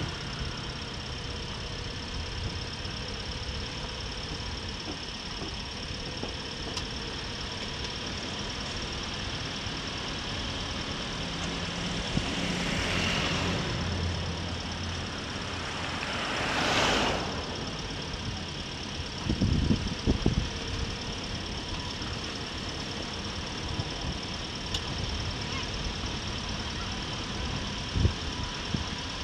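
Motorcycle engine running steadily at cruising speed with road and wind noise. Other vehicles swish past twice, about thirteen and seventeen seconds in, the second the louder, and there are several low thumps around twenty seconds in and a sharp one near the end as the bike rides over a rough, patched road surface.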